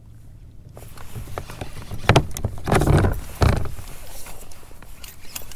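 Knocks and thumps of gear being handled in a kayak, the loudest about two to three and a half seconds in, over a low rumble.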